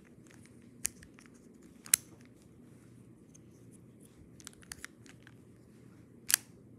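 Plastic fraction tiles clicking and tapping against each other and their clear plastic case as they are handled. There are a handful of sharp clicks, the loudest about two seconds in and near the end, with faint ticks between them.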